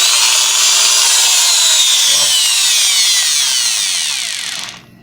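Old handheld electric drill running at speed, its motor whine gliding lower toward the end and dying away just before the end. It runs with its hammer-action mechanism and a loose internal plastic piece removed, the fix for its strange knocking noise.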